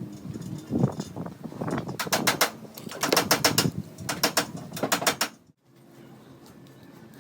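Rapid mechanical clicking from a hand tool working on a wire connector, in several short runs, then cut off suddenly near the end.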